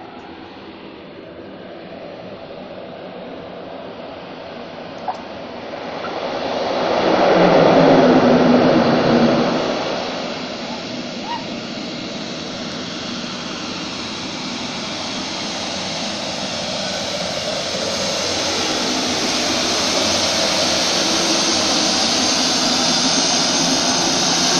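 Small turboprop passenger plane landing and taxiing in. Its engines swell to their loudest about eight seconds in, ease off, then run steadily and grow louder, with a high turbine whine, as the plane taxis up close.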